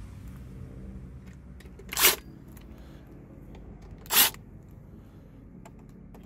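A driver loosening the small screws on a car radio's plastic housing: two short, loud bursts of noise about two seconds apart, with faint ticks between them.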